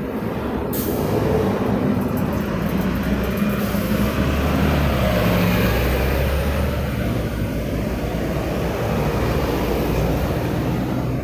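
City street traffic: a steady rumble of engines and tyres from passing vehicles, with a brighter hiss coming in about a second in.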